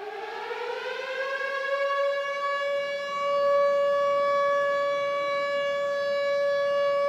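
Civil-defence-style siren winding up, rising in pitch over the first couple of seconds, then holding one steady wail.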